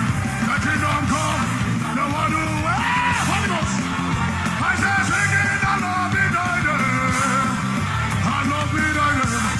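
Loud live worship music: a band playing, with voices singing and shouting over it.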